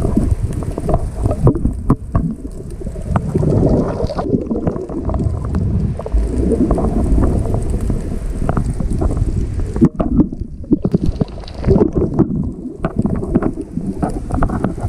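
Muffled rushing and gurgling of water moving around a GoPro camera housing held underwater, with many small irregular knocks as it is swept about. The upper hiss cuts out several times.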